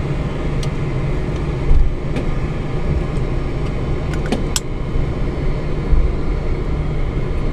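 Steady flight-deck noise of a Boeing 747-400 on the ground with its engines running: a low rumble and hum under an even hiss. Two low thumps come about 2 and 6 seconds in, and a few sharp clicks come about four seconds in.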